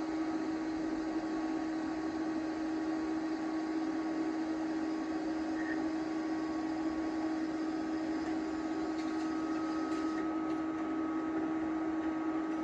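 TIG welding arc from a YesWelder TIG-205DS running at about 73 amps while a small bead is laid on flat steel: a steady hum with a constant tone under an even hiss.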